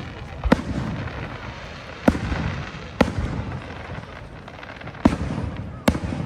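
Fireworks display: five sharp shell bursts at uneven intervals, each followed by a low rumbling echo.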